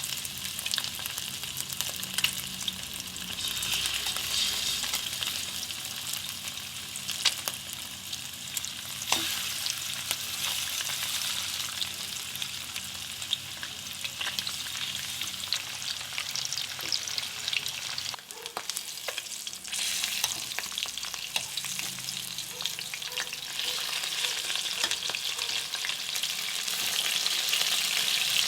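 Turmeric-marinated fish pieces shallow-frying in hot oil in a pan: a steady sizzle broken by sharp pops and crackles of spattering oil. The sizzle drops away briefly about eighteen seconds in, then comes back.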